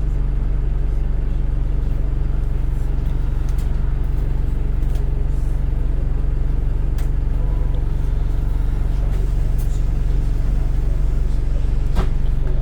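Alexander Dennis Enviro 200 bus engine and air compressor running steadily, an even, deep low hum with no revving, the vibration the title calls wall-vibrating. One sharp click about twelve seconds in.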